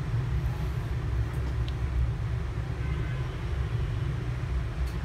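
Steady low rumble with one or two faint ticks.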